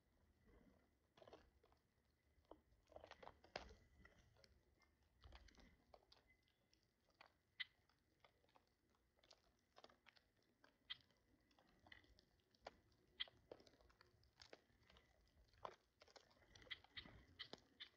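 Birds eating, close to the microphone: faint, irregular small crunches and sharp pecking clicks, several a second at times, with no steady rhythm.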